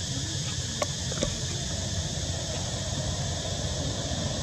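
Outdoor ambience: a steady low rumble of distant traffic under a steady high drone of insects, with a couple of faint ticks about a second in.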